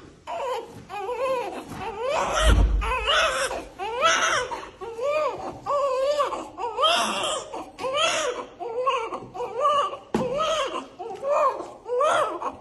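A baby crying in short repeated wails, each rising and falling in pitch, one after another. A low bump sounds about two and a half seconds in.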